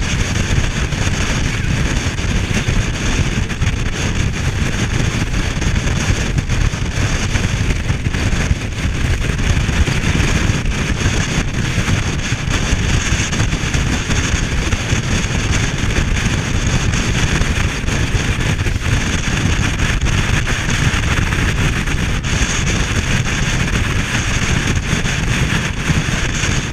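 Steady wind buffeting on the microphone of a RIB boat running fast, mixed with the rush of water along the hull and the boat's engine.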